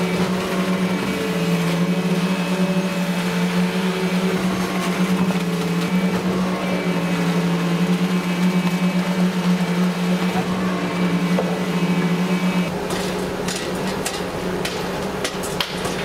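Concrete-pouring machinery running during a pour, a steady loud hum whose pitch dips slightly now and then. About 13 seconds in the hum weakens and scattered knocks and clatter take over.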